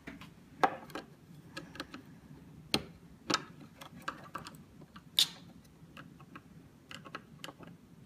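Irregular sharp plastic clicks and small scrapes as a small screwdriver pries at the front cover of a plastic wall light switch, with the loudest clicks about half a second in, near three seconds and around five seconds.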